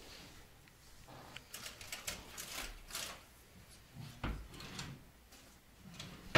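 Rummaging in a wooden cabinet: a run of small clicks and rattles from things being moved, a couple of knocks from a door or drawer, and one sharp, loud knock at the very end.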